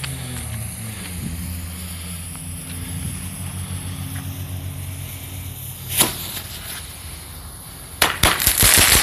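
A single sharp pop about six seconds in, then a rapid string of firework bangs and crackles from about eight seconds on, with a steady low rumble underneath before the bangs.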